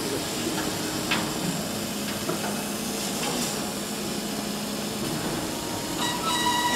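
CO2 laser cutting machine running as its head cuts glass: a steady hiss with a low hum, a light tick about a second in, and a whining tone that comes in near the end.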